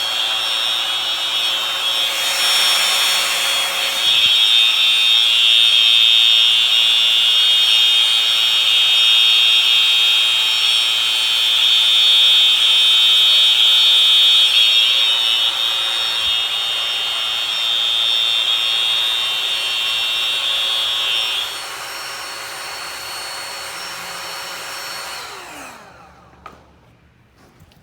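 Electronic fire alarm horns sounding a steady, loud, high-pitched tone. The main tone cuts off about 21 seconds in, a quieter horn sound carries on for a few seconds more, and then the alarm falls silent.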